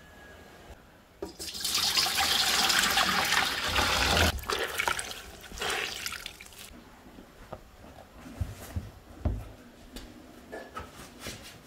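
Water streaming and splashing into a bowl as a wet cloth is wrung out by hand, for about five seconds, then dripping. After that come a few soft knocks and rustles of cloth.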